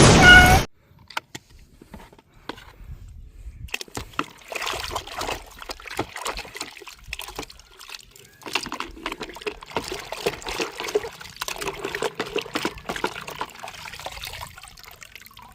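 Water splashing and trickling, with many small plastic clicks and knocks, as toy cars are washed by hand. A short, loud burst of noise cuts off just after the start and is followed by a few seconds of near-quiet before the washing sounds begin.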